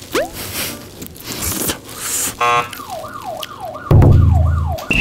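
Warning-light siren wailing in quick repeated falling sweeps, about three a second, after a short swooping whistle at the start. A loud low buzz comes in about four seconds in.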